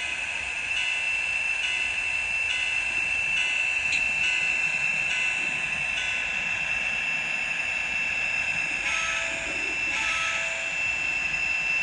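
An N scale model locomotive's DCC sound decoder playing a GP38-2 diesel prime-mover sound through its tiny speaker while the model runs, with a steady high-pitched tone throughout. Two short tones sound about three quarters of the way through.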